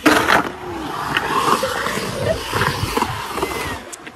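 Skateboard wheels rolling and carving on a concrete bowl, a steady rumbling roar, with a sharp clack of the board against the concrete right at the start.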